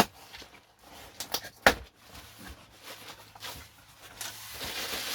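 A cardboard box being handled and opened, with a few sharp knocks and taps. From about four seconds in, packaging rustles and crinkles.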